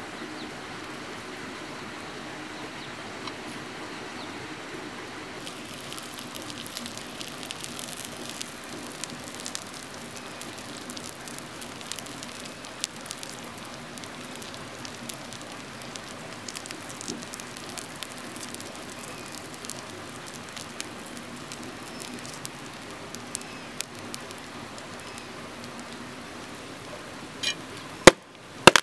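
Snakehead fish sizzling on a hot stone slab over a small wood fire, a steady hiss with sharp crackles and spits that come thicker after about five seconds. A single loud click near the end.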